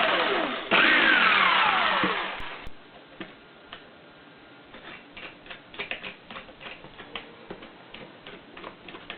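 Skil 46A jigsaw's motor run in two short bursts on a test run after fitting a new sintered metal bushing. Each burst falls in pitch, and the second ends about two seconds in. Light clicks and handling follow.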